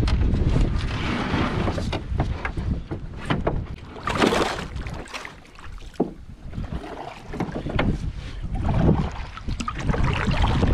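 Canoe being paddled in moving water: paddle strokes and splashing, with a few short knocks on the hull. Wind rumbles on the microphone throughout, easing for a moment in the middle.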